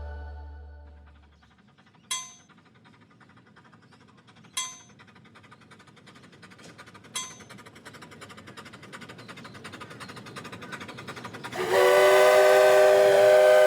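A train approaching: three single bell strikes about two and a half seconds apart over a rhythmic clatter of wheels on rail that grows louder, then, near the end, a loud, steady multi-note train horn.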